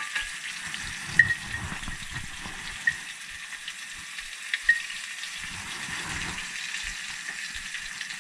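Fish fillets frying in butter in a cast-iron skillet, a steady sizzle, with a few sharp clinks of a slotted metal spatula as a cooked fillet is lifted out, the loudest about a second in and a quick pair just before the middle.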